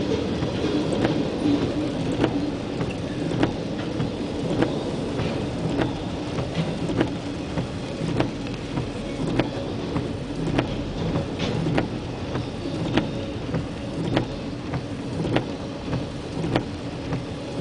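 Freight train cars rolling past in the rain, their wheels clicking sharply over the rail about once every second and a bit, over a steady rumble and the hiss of rain.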